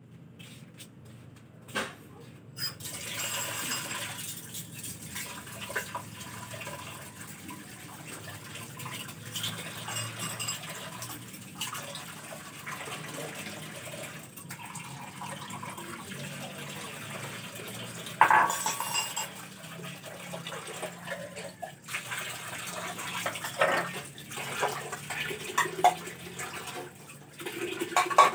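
Dishes being hand-washed in a stainless steel sink: running tap water with repeated clinks and knocks of bowls, plates and cutlery, loudest about 18 seconds in.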